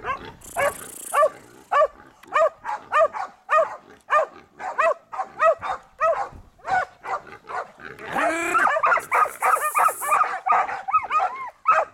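A dog baying at a wild boar it has cornered in a pen, barking repeatedly about twice a second. About eight seconds in, the barks come faster and run together.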